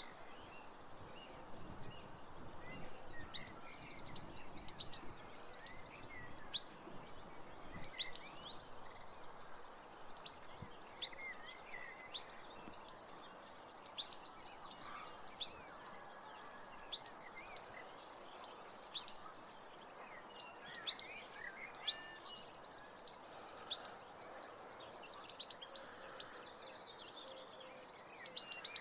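Several wild birds singing and calling, a busy mix of short chirps and trills, over steady outdoor background noise.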